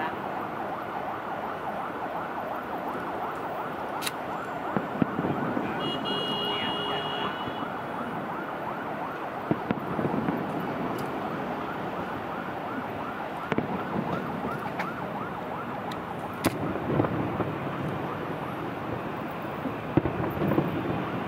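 Distant fireworks going off as scattered sharp bangs, about eight of them spread irregularly, over a steady warbling background din.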